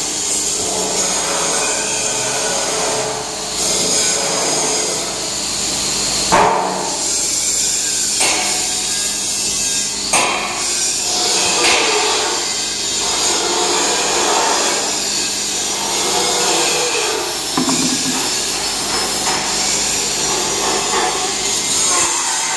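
Vibratory feeder tray set to 30% on its controller, running with a steady rattling buzz as grain shakes along the tray and pours off into a sack. A few louder knocks stand out, about six, ten and seventeen seconds in.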